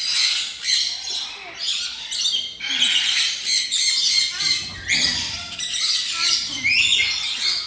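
A flock of aviary parrots squawking and chirping continuously, many birds calling over one another in a dense, high-pitched chatter.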